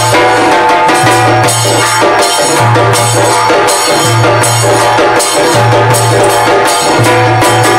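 Background music with a steady drum and percussion beat and a low bass note repeating about every second and a half.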